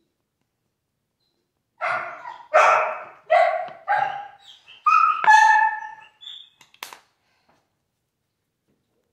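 A dog barking: four barks in quick succession, then two higher-pitched barks.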